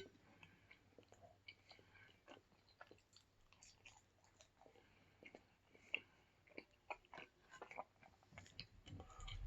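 Faint, close-up chewing of a soft potato-and-cheese pierogi: soft, irregular wet mouth clicks and smacks.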